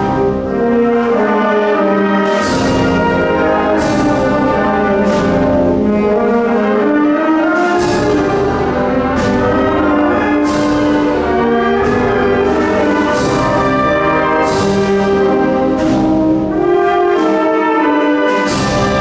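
Symphonic wind band playing a Spanish processional march: sustained brass chords over a slow, steady beat, with a percussion strike about every one and a half seconds.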